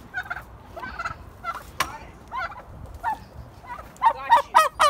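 Chickens squawking in alarm as they are chased, short scattered calls, then a burst of loud, rapid squawks near the end. A single sharp knock sounds just under two seconds in.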